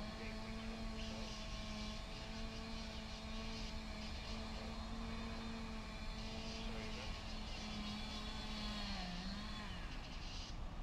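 Engine of a hydraulic rescue tool power unit (jaws of life) running at a steady high speed, its pitch wavering and dipping about nine seconds in as it takes load, with a hiss above it coming and going.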